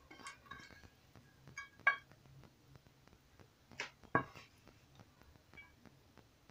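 Faint clicks and a few sharper, briefly ringing knocks of a plastic serving spoon against dishes as stir fry is spooned out: one about two seconds in and two close together around four seconds in.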